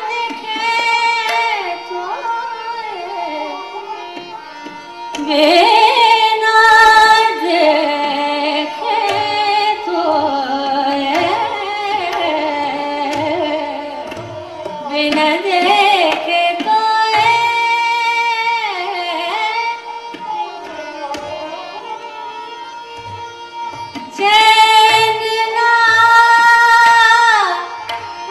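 Female Hindustani classical voice singing a thumri in raga Tilang, with long ornamented phrases that swell loudest about five seconds in, in the middle and near the end. Underneath are a tanpura drone, a harmonium and tabla strokes keeping Jat taal.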